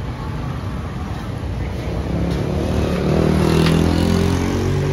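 A motor vehicle's engine running close by, growing louder from about two seconds in and fading near the end, over a low street rumble.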